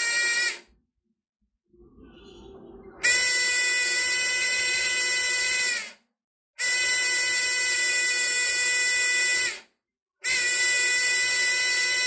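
Small electronic buzzer on a breadboard fire-detector circuit sounding a steady, high buzzing tone. The alarm is set off by the IR receiver sensing a candle flame. The tone sounds in stretches of about three seconds: it stops just after the start, then comes on three more times, each stretch separated by a short silence.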